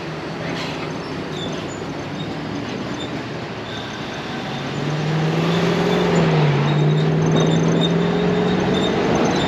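An engine running steadily, rising in pitch and getting louder about halfway through.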